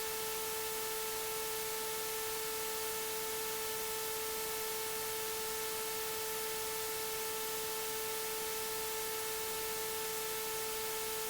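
A steady electronic tone with overtones, held at one pitch over an even static hiss, without change.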